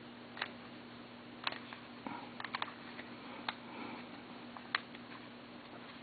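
Scattered light plastic clicks of a Rubik's cube being turned and handled, a few sharp ticks with a small cluster about two seconds in, over a faint steady hum.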